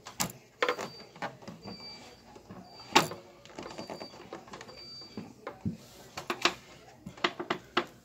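Handling noise: a series of sharp clicks and knocks, the loudest about three seconds in, with a few brief high squeaks.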